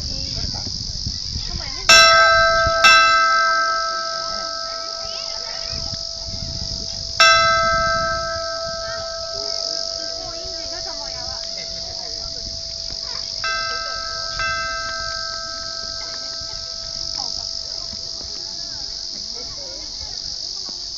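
An outdoor hanging bell struck five times: two strong strikes close together, a loud third a few seconds later, and two softer strikes near the middle, each leaving a long ringing hum that slowly fades.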